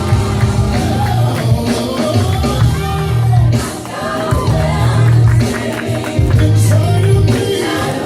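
Live gospel praise music: voices singing with band accompaniment over a strong bass line.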